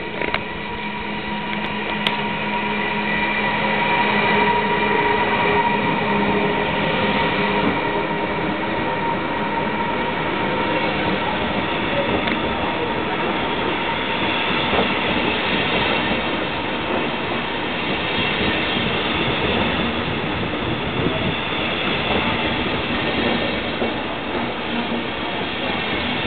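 A DB class 189 electric locomotive passes close by, hauling an empty car-carrier train of passenger coaches. The rumble of the wheels on the rails builds over the first few seconds and then holds steady as the coaches roll past, with a thin steady whine over it.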